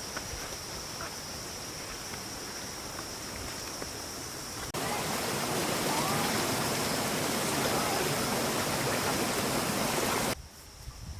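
Rushing stream water: a fainter water noise under a steady, high insect drone. About halfway through, loud rushing water starts abruptly, then cuts off suddenly shortly before the end.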